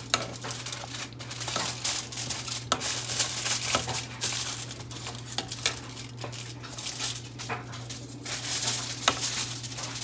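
A plastic spoon stirring thick meat sauce in a metal pot, with irregular scrapes and soft clicks against the pot, over a steady low hum.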